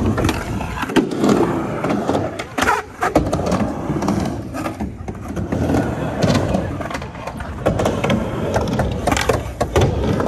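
Skateboard riding a mini ramp: the wheels roll across the ramp surface, with repeated sharp clacks of the board and trucks hitting the coping and deck.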